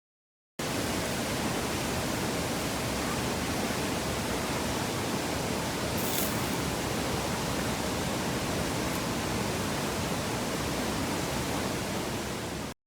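Steady rush of river rapids: an even, unbroken water noise that starts abruptly and cuts off abruptly.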